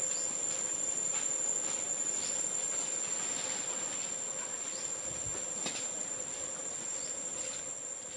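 Insects, crickets by their sound, chirring in one steady high-pitched drone, with a few faint clicks.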